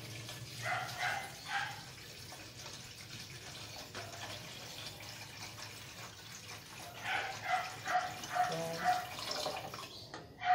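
Water pouring from an aluminium kettle into a wide aluminium pot of sautéed mushrooms and noodles. Over it, short pitched calls repeat: a few about a second in, then a quicker run of about seven near the end, louder than the pouring.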